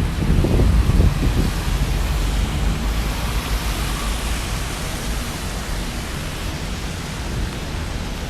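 Steady hiss of heavy rain with wind. A stronger low rumble of wind comes in the first second or so, then eases.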